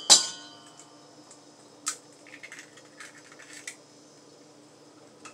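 An egg cracked against the rim of a mixing bowl: one sharp knock that leaves the bowl ringing for about a second, followed by a few light clicks and taps.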